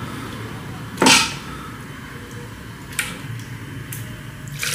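Stainless steel bowl and steel grinder jar knocking together: one loud clank about a second in, then two light clinks, as softened boiled vegetables are tipped from the bowl into the jar.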